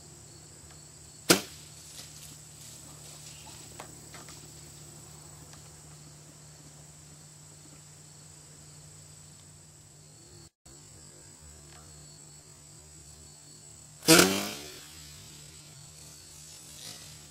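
Hunting bow fired twice: one sharp, very short crack about a second in, then near the end a second, louder crack with a short fading rattle after it, a shot at a doe that missed.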